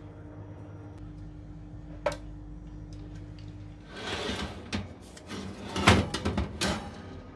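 Metal baking tray sliding into an oven on its rack: a scrape and a run of rattling clunks, with the loudest clunk about six seconds in. A single sharp click comes about two seconds in.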